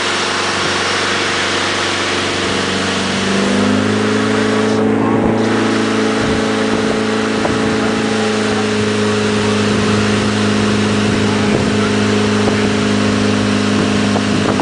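Fireboat engine running and stepping up to a higher, steady speed about three seconds in, over the constant hiss of water jetting from a manual fire monitor nozzle. The hiss drops out briefly about five seconds in.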